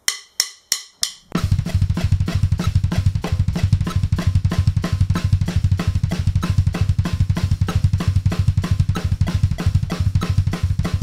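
Drum kit playing a fast thrash metal groove at 190 BPM: snare on every beat, with three double-pedal bass drum strokes between each snare, played right-left with the slide technique. It is counted in by four evenly spaced clicks, and the groove comes in about a second in.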